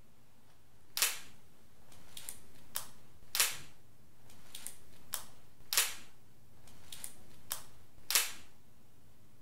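Camera shutter clicking four times, about every two and a half seconds, with lighter clicks in between.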